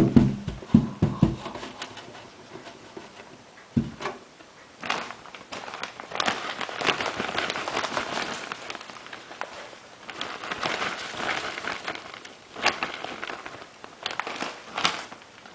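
Loose wood bedding rustling and crackling as it is tipped into a mouse cage and spread across the floor, with a few sharp knocks along the way.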